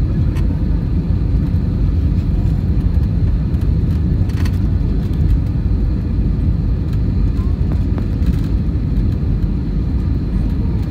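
Steady low rumble of cabin noise inside an Airbus A320neo on final approach, the engines and the airflow over the wing heard from a window seat.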